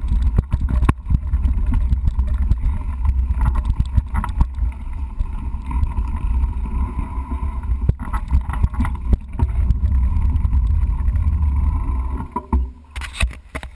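Mountain bike rolling over rough, rocky ground: the knobby front tyre and bike rattle and knock over the bumps, with wind rumbling on a camera mic mounted low on the fork. About twelve and a half seconds in the riding noise drops away, leaving a few light clicks.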